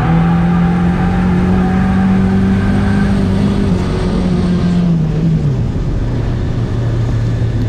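Turbocharged Honda Civic drift car's engine running under load at steady high revs, then dropping to a lower pitch about five and a half seconds in as the revs fall.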